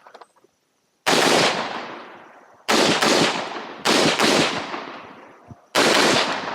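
Six rifle shots from a rifle fitted with a muzzle brake: a single shot, two quick pairs, then one more, each sharp crack trailing off in a long echo across the range.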